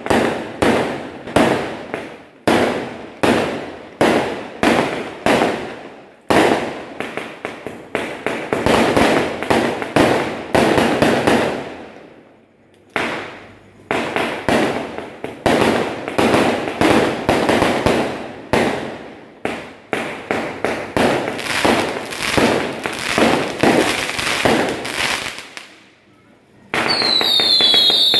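Aerial fireworks going off overhead: a long string of sharp bangs, one or two a second, with crackling in between and a brief lull midway. Near the end several whistling fireworks go off together, their whistles falling in pitch.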